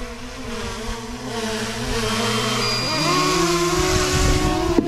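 Small quadcopter drone's propellers buzzing as it hovers low overhead on an almost flat battery, the pitch wavering. About three seconds in the pitch jumps higher and louder as it is brought down to be caught by hand, with a couple of sharp knocks near the end.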